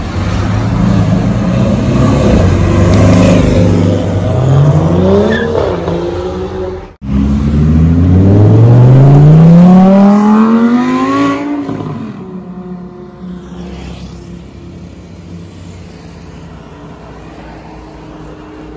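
A sports car's engine accelerating hard, its pitch climbing about four to six seconds in. After a sudden break, a Lamborghini Huracán Performante's V10 accelerates hard away, loudest of all, its pitch rising steadily for about four seconds before fading to light street traffic.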